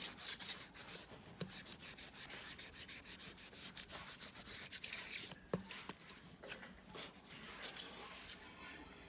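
Fast back-and-forth rubbing strokes of a laptop cooling fan being polished by hand. The strokes thin out to a few scattered scrapes after about five seconds.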